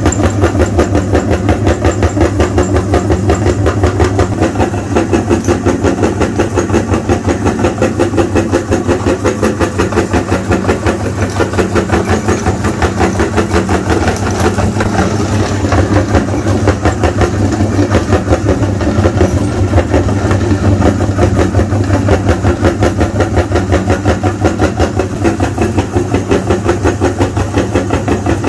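Electric meat grinder running steadily under load, its auger crushing sticks of chalk and forcing the powder through the cutting plate, with a low motor hum and a rapid, even churning pulse.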